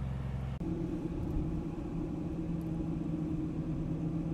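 A vehicle driving along a highway, heard from inside the cabin: a steady engine and road drone. A low engine hum from an approaching semi truck cuts off suddenly about half a second in.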